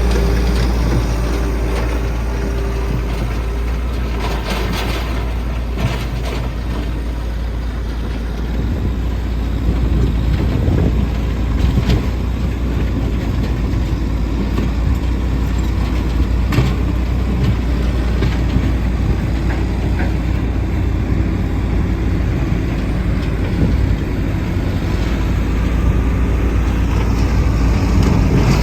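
Diesel engines of a tracked skid steer and a road roller running steadily as they level and compact the ground: a continuous heavy low rumble with occasional clanks.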